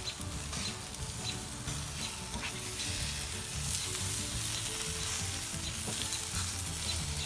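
Chicken legs sizzling steadily on a charcoal grill, with small scattered crackles and pops.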